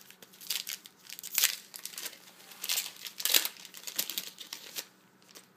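A Bowman Platinum baseball card pack wrapper being torn open and crinkled by hand, in irregular crackling bursts, the loudest rips about a second and a half and three and a half seconds in, stopping near the end.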